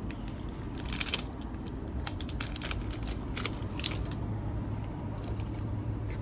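Baseball cards and their pack wrapping being handled: scattered light clicks, snaps and crinkles at an uneven pace.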